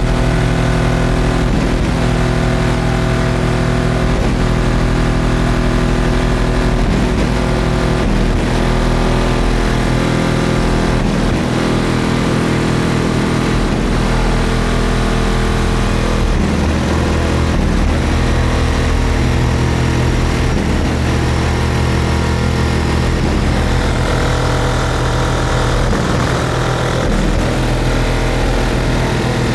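Competition car-audio system playing very loud, bass-heavy music, with deep bass notes held for several seconds before shifting and a beat about every second and a half.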